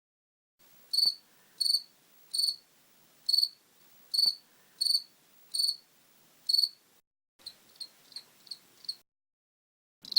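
A cricket chirping in short, high, pulsed chirps, about one every three-quarters of a second. After a brief gap comes a fainter run of quicker chirps, and louder chirps start again at the very end.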